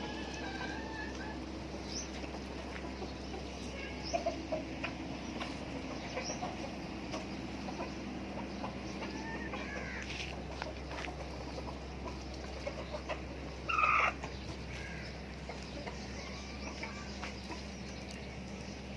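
Hens clucking in short, scattered calls, with one louder call about fourteen seconds in.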